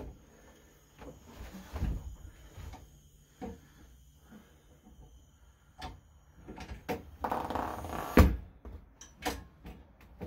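Clanks and knocks from a manual tire changer's steel bead-breaker arm and a wheel and tyre being shifted on its base as the bead breaker is set against the sidewall, with one sharp bang about eight seconds in.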